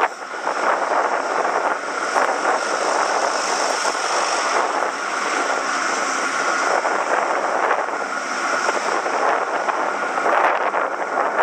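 Steady rushing wind noise on the microphone of a moving bicycle, mixed with road noise, swelling and easing slightly but never stopping.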